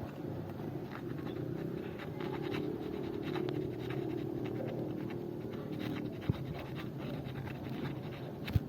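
Hand file rasping in repeated scratchy strokes against a new scooter brake pad, trimming it because the pad is too tight to slip into its holder.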